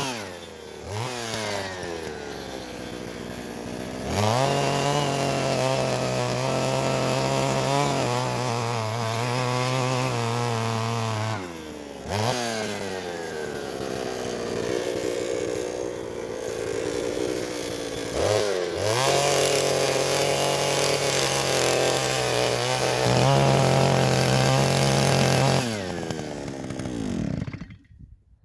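Small two-stroke engine of a hand-held petrol earth auger revving high as it bores planting holes in soil, held at full throttle for several seconds at a time and dropping back to a lower speed three times. Near the end it winds down and stops.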